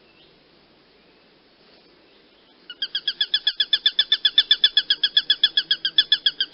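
A hawk giving a rapid series of short, repeated call notes, about eight a second, starting almost three seconds in.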